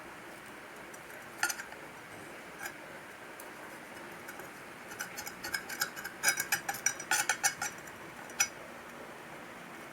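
Light clicks and taps of small hard objects being handled, a few scattered and a quick run of them in the middle, over a faint steady hiss.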